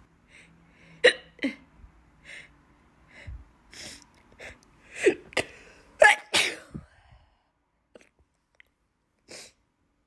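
A woman with hiccups sneezing again and again, the sneezes and sharp catches of breath coming in quick succession and loudest about five to six seconds in, then only faint breaths.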